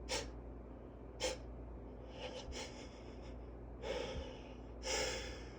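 A man's quick sniffs and gasping breaths in the build-up to a sneeze: two short sharp intakes, then longer, heavier gasps about two, four and five seconds in.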